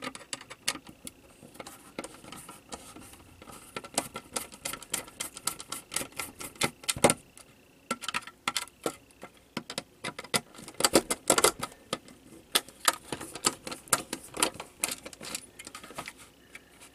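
A hand screwdriver working screws inside a plastic power-supply case: an irregular run of small clicks, taps and rattles of metal on metal and plastic, with louder clusters about seven and eleven seconds in.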